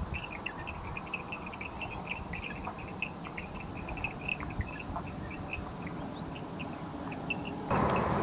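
Outdoor ambience: many small animals chirping, short high chirps several per second, over low wind rumble on the microphone. Near the end a louder, steady rushing noise comes in.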